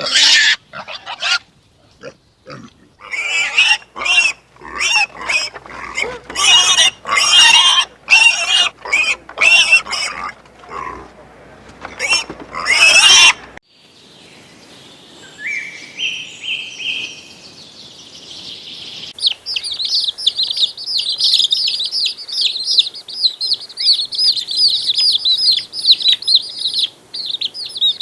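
Loud, repeated animal squeals and calls for about thirteen seconds that cut off suddenly. Later, a dense, continuous high chirping of small birds begins.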